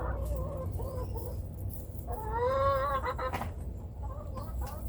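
A hen clucking softly, with one longer drawn-out call that rises and falls about two seconds in, over a low steady rumble.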